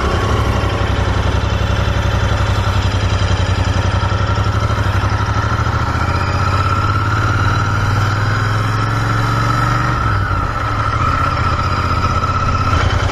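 Motorcycle engine running steadily while being ridden; the engine note eases and shifts about ten seconds in.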